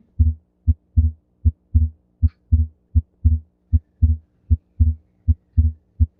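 Recorded human heart sounds: a regular lub-dub rhythm of paired low thumps, about eight beats a little faster than one a second, presented as S2 splitting during inspiration. A faint steady hum runs underneath.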